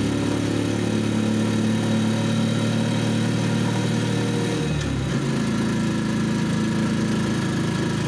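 Vehicle engine running steadily while driving, heard from inside the cab. About five seconds in, the engine note drops and then settles at a new steady pitch.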